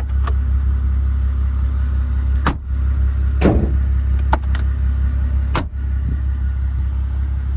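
Mercedes-Benz G65 AMG rear door being worked by its push-button handle: a few sharp metallic clacks and clunks of the latch releasing and shutting, the loudest about two and a half and five and a half seconds in, over a steady low rumble.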